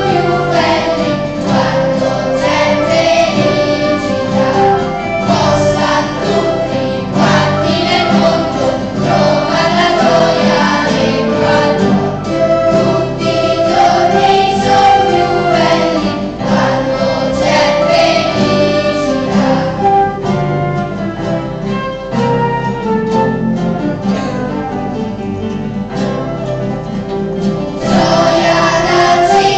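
Children's school choir singing with a classical guitar ensemble accompanying, led by a conductor. The music softens for several seconds past the middle and swells again near the end.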